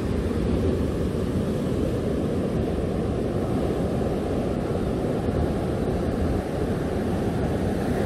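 Sea surf breaking and washing up a sandy beach, with wind rumbling on the microphone; a steady, even rush of noise.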